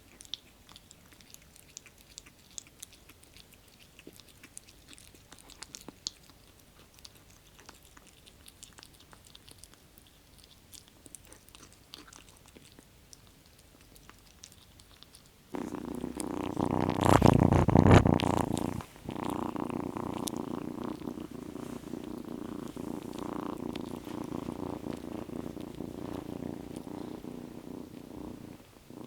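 Kitten eating wet food with faint clicking chews, then, a little past halfway, loud purring that starts suddenly, is loudest for a few seconds and then carries on steadily.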